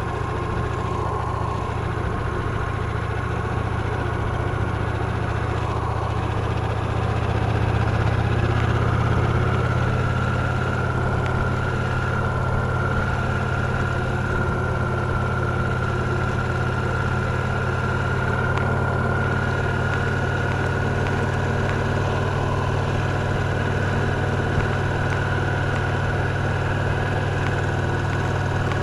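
Victory Cross Roads Classic LE's 1700 cc V-twin engine running steadily, growing a little louder about eight seconds in and holding there.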